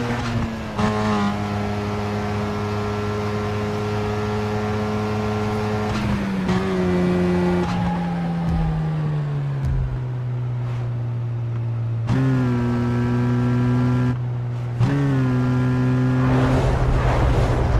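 Car engine and loud exhaust running steadily, its pitch holding, then sliding down over a few seconds, then jumping back up twice. It turns rougher and noisier near the end.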